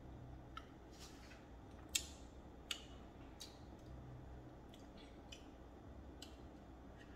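Faint, scattered small clicks of eating yogurt with a metal spoon, the spoon tapping and scraping the cup and the lips working as she tastes, roughly one click a second with the sharpest about two seconds in.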